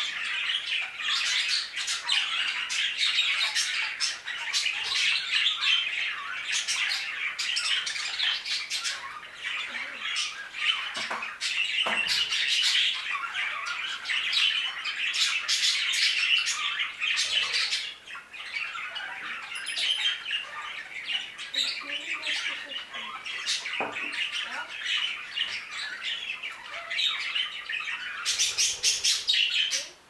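A flock of budgerigars chattering and squawking together: a dense, unbroken mix of warbles, chirps and sharp calls.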